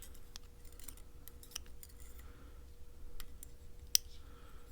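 Small metal clicks and light taps from handling the pins and parts of a disassembled Mul-T-Lock dimple lock core, with one sharper click about four seconds in.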